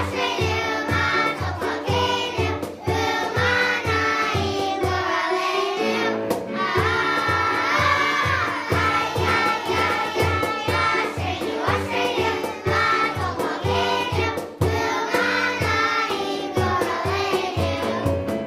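Children's choir singing a song over a backing track with a steady beat.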